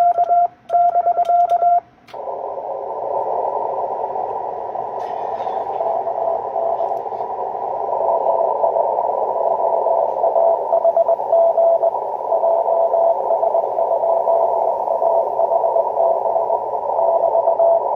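Amateur radio transceiver in CW Morse code: the operator's own keyed sidetone beeps stop about two seconds in. The receiver's narrow-filtered hiss then opens, and a weaker Morse code signal is keyed within it at the same pitch: the distant station answering.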